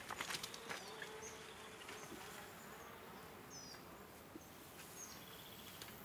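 Faint meadow ambience: an insect buzzing with a wavering hum, and several short, high bird chirps. A few light clicks in the first second.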